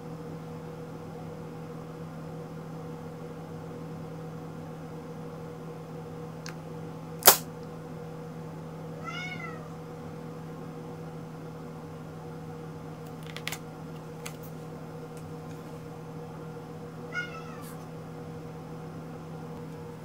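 Ragdoll cat meowing twice at a closed door, once about nine seconds in and again near the end: short pleading calls for the door to be opened. A single sharp click comes a couple of seconds before the first meow, over a steady low hum.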